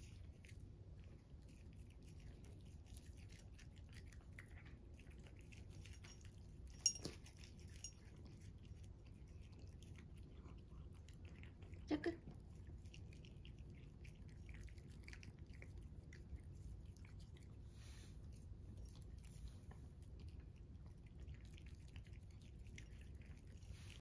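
Norwegian Forest Cat eating dry kibble from a ceramic bowl: faint, steady crunching and chewing, with two sharper clicks about seven and twelve seconds in.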